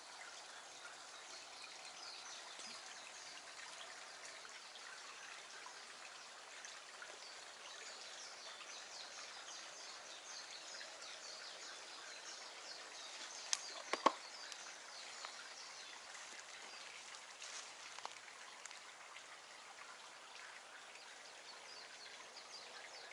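Outdoor bamboo-grove ambience: a steady soft hiss with many small high chirps and ticks, and two sharp clicks about fourteen seconds in.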